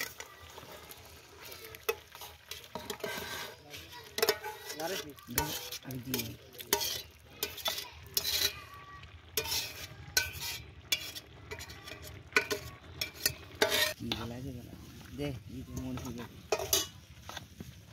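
A wooden spatula stirring and scraping through hot rice in a large aluminium pot, with repeated sharp clacks against the metal and a sizzle from the steaming food.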